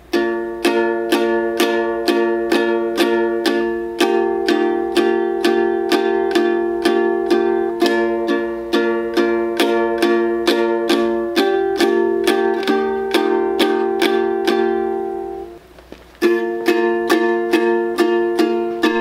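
Ukulele strumming chords in a steady, quick rhythm, about three strums a second, with a short pause near the end.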